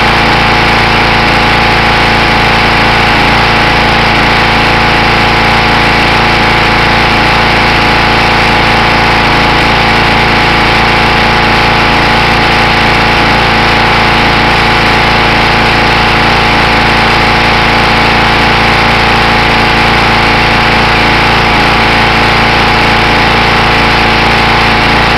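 Simoniz 2350 PSI pressure washer's small gas engine running steadily at one constant speed.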